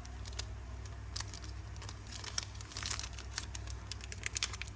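Plastic bag crinkling in irregular crackles as it is pulled off a Zippo lighter.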